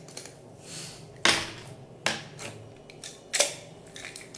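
Sharp clicks and crackles from the plastic screw cap of a small jar being twisted open and pulled off, with three louder clicks about a second apart.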